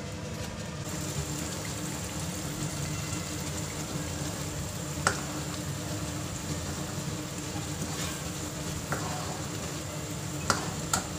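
Thick garlic chili sauce sizzling in hot oil in a pan as a metal spoon stirs it, with sharp clicks of the spoon against the pan about five seconds in and twice near the end.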